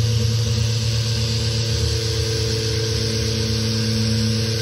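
Festool random-orbit sander running steadily, its pad scrubbing across wood strips in a rough sanding pass: an even motor hum with a hiss of abrasive on wood.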